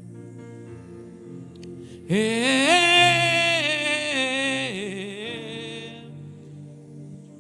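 Sustained instrumental chords hold throughout. About two seconds in, a loud wordless sung note rises in pitch, holds with vibrato, and fades out about five seconds in.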